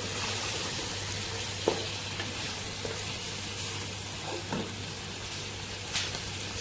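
Chicken pieces sizzling steadily as they fry in oil in a pot, browning with biryani masala while a wooden spatula stirs them, with a few light knocks of the spatula against the pot.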